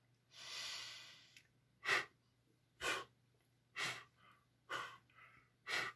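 A man puffing air out through half-open lips from a mouth filled with air: a longer rush of breath about half a second in, then five short puffs about a second apart.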